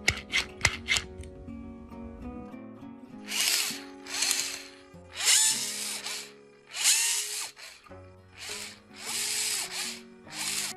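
A model sailboat's electric sail winch, a motor driving a geared drum, runs in a series of short whirring bursts of under a second each. Each burst opens with a brief rising tone as the motor spins up. A few sharp clicks come in the first second.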